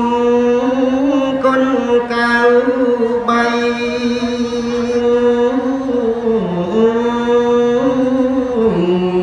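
Khmer smot, Buddhist chanted poetry: a solo male voice sings unaccompanied into a microphone, holding long drawn-out notes. The pitch stays steady for most of the time, dips briefly about two-thirds through, and steps down to a lower held note near the end.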